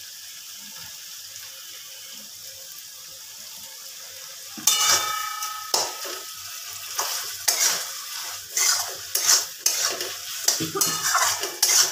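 A faint steady sizzle from the pan, then, about four and a half seconds in, a metal spatula strikes the aluminium kadai with a ringing clang and goes on scraping and knocking against it as the cooked Malabar spinach curry is stirred with the raw mustard oil just drizzled over it.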